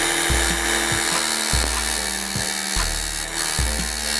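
Small vertical belt sander running with a thin piece of wood pressed against its belt, giving a steady sanding hiss, over background music with a steady beat.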